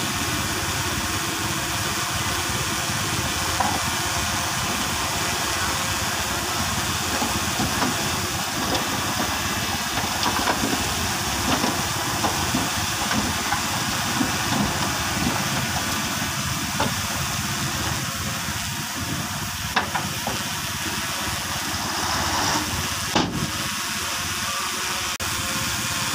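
Engines of a bulldozer and a dump truck running steadily under an even hiss while the truck tips its load of dirt, with one sharp knock near the end.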